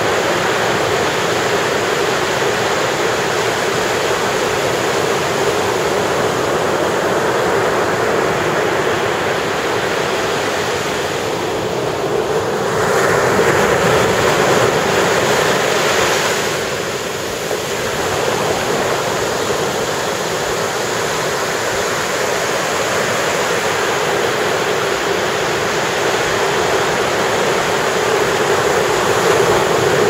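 Ocean surf breaking and washing up the beach, a steady rush. It swells louder for a few seconds near the middle as a wave breaks close in and its foam runs up the shore, then eases briefly.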